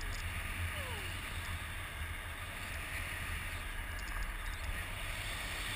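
Airflow of a tandem paraglider in flight rushing over the camera's microphone: a steady low buffeting rumble with an even hiss above it.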